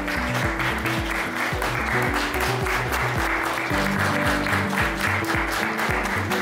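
An audience applauding steadily, a dense clapping that runs through the whole stretch, over background music with a steady bass beat.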